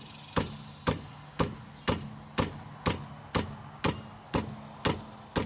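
Right front wheel of a 2013 Impala being rocked back and forth by hand, giving a sharp metallic click or clunk about twice a second as the loose wheel shifts. This is play from a badly worn front wheel bearing, with something rattling in there that the owner thinks may be the brake pads.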